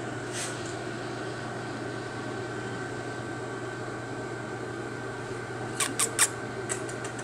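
Steady low hum of room ventilation, with a few short sharp clicks about six seconds in.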